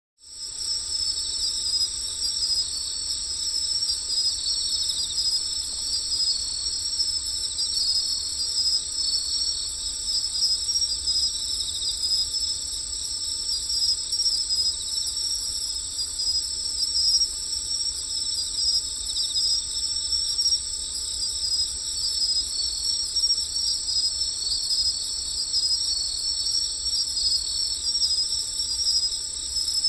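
A dense chorus of night insects, such as crickets, trilling on and on at a high pitch.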